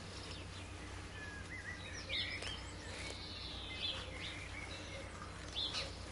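Birds chirping with short, scattered notes every second or two over a steady low hum.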